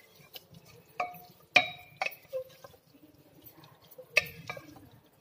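Wooden spatula stirring keema and peas in a stainless steel pressure cooker, knocking against the pot's sides in a few sharp, ringing clinks, the loudest about a second and a half in, over faint scraping. The mince is being bhuna-fried on medium flame.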